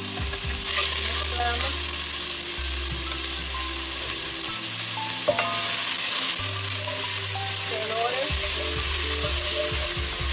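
Chopped red onion sizzling in hot oil in a cast-iron caldero, stirred and scraped with a wooden spoon. The sizzle swells a little under a second in as the last of the onion goes into the oil.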